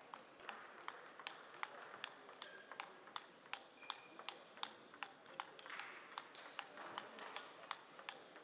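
Table tennis ball clicking back and forth in a long steady rally, alternately bouncing on the table and striking the players' bats about two and a half times a second.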